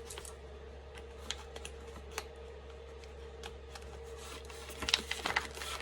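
Scissors clicking as they cut a slit in a plastic microwave rice pouch: scattered light clicks, then a quick cluster of snips near the end, over a faint steady hum.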